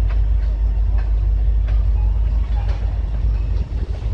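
Norfolk Southern freight train's covered hopper cars rolling past: a steady low rumble, with sharp wheel clicks about once a second.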